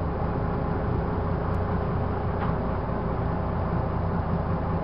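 Harbor boat's engine running steadily, heard from inside the wheelhouse as a low, even drone while the boat is underway.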